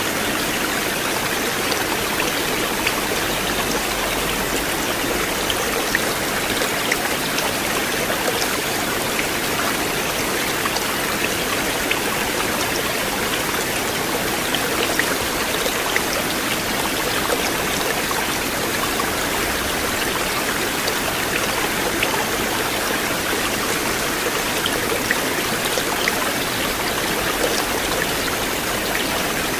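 River water flowing steadily: a constant rushing with many small splashes and drips.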